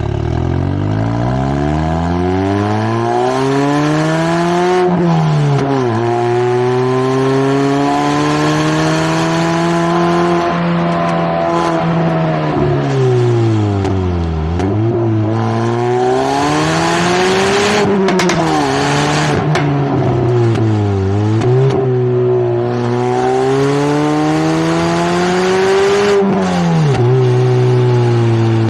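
Ford Focus ST exhaust and engine under hard driving. The engine note climbs through the revs several times and drops sharply at each gear change, and a rush of hiss joins it on the harder pulls.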